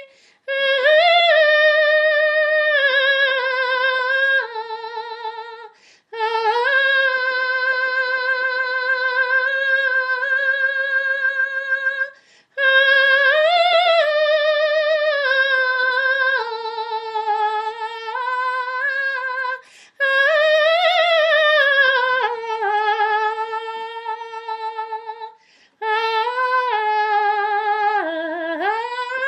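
A woman's solo voice singing unaccompanied: long sustained notes with vibrato and slow glides between pitches, in several phrases broken by short pauses for breath.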